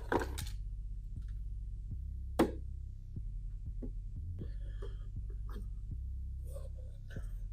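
A few sharp knocks on a freshly glued wooden sound box, one right at the start and a louder one about two and a half seconds in, with faint clicks between, over a low steady throbbing hum.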